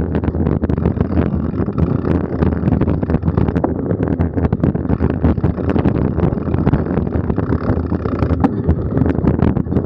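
Mountain bike rolling fast along a dirt forest trail, heard from a bike- or body-mounted camera: steady low rumble of tyres and wind on the microphone, with frequent small clicks and rattles as the bike goes over bumps.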